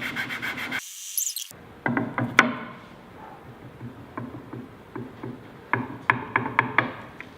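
Wooden cheese-board feet rubbing briefly on 320-grit sandpaper, then a short dropout. After that come light, sharp wooden taps as the board rocks on the flat cast iron table: a pair about two seconds in, and a quick cluster near the end. The tapping is the sign that one foot is still very slightly out of level.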